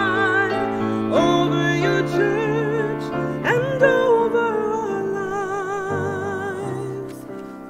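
A woman soloist singing with a wide vibrato over piano accompaniment, the low chords changing under held notes; the sung line fades near the end.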